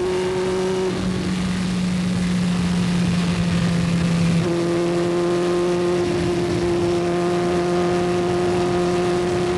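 Onboard sound of a Melkus MT77-1 Formula Easter single-seater's 1.3-litre racing engine, running hard at a steady high pitch at racing speed. Its note changes about four and a half seconds in.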